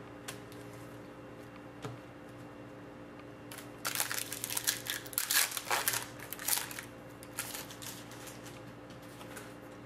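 Foil wrapper of a Panini Certified hockey card pack being torn open and crinkled by hand. The crackling rustles start about three and a half seconds in and go on for about three seconds, with a few more just after. A faint steady hum runs underneath.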